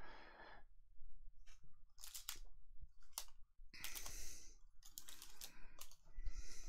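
Crinkling and rustling of plastic trading-card packaging being handled off camera, in irregular short bursts with a few clicks; the loudest bursts come about four seconds in and near the end.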